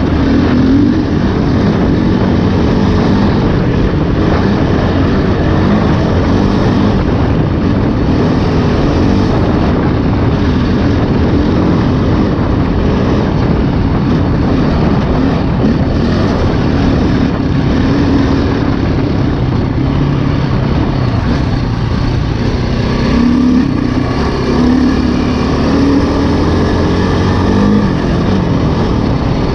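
2008 KTM 530 EXC's four-stroke single-cylinder engine running continuously as the dirt bike is ridden, its pitch rising and falling with the throttle.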